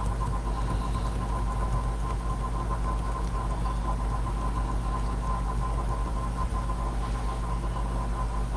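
Steady, unchanging low hum with a thin high whine over it, like a motor or electrical hum.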